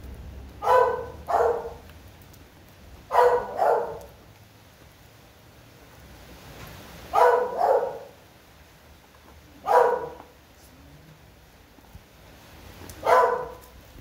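Dog barking: short barks, mostly in quick pairs, about eight in all, spaced a few seconds apart.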